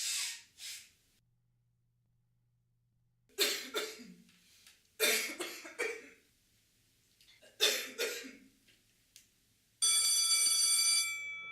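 A person coughing: a short cough at the start, then three loud hacking coughs about two seconds apart. Near the end, a steady, high electronic ringing tone starts suddenly and holds for about a second and a half before fading.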